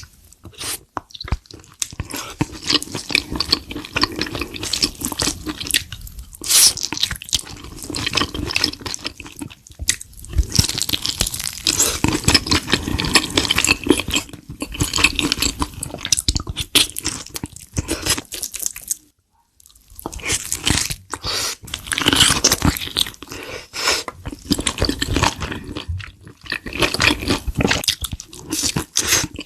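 Close-miked wet eating sounds of spicy Korean soup being eaten: chewing and slurping with many small wet clicks. There is a brief pause about two-thirds of the way through.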